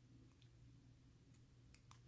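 Near silence with a low steady hum and a few faint clicks as a thin metal probe touches the brass plug of a disassembled 5-pin Master Lock padlock.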